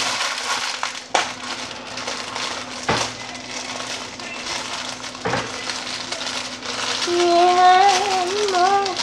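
A plastic packet crinkling and crackling as hands crumple and pull at it, with a few sharper crackles. Near the end a child hums a wavering tune over it.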